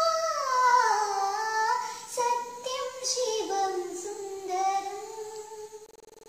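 A girl singing unaccompanied: a slow melodic line whose pitch slides down and back up. It cuts off suddenly near the end.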